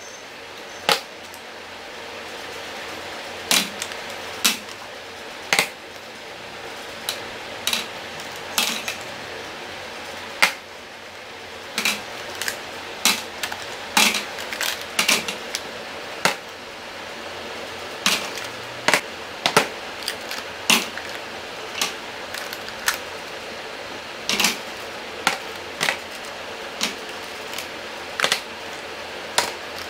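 Plastic lipstick and lip gloss tubes clicking and clacking as they are picked up and set down one at a time while being sorted, in an irregular run of sharp taps.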